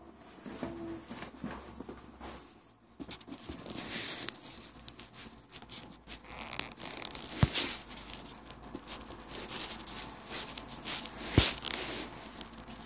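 Close, irregular crackling and rustling, like scraping and crinkling right at the microphone, with two sharp knocks partway through and near the end.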